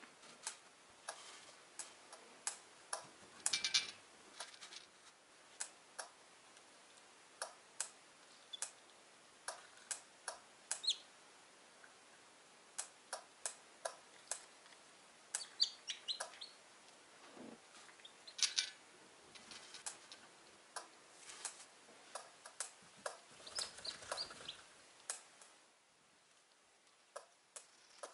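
Hatching chicks peeping now and then, a few short high calls, over many sharp, irregular ticks of beaks pecking through eggshells.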